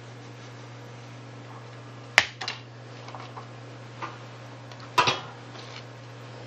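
Steady low hum with a few sharp clicks and knocks of hard objects being handled, the loudest about two seconds in and again about five seconds in.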